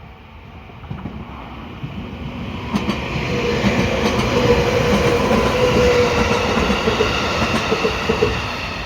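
JR 211 series electric train approaching and passing close by, growing louder over the first four seconds or so, with wheels clacking over rail joints and a steady tone at its loudest.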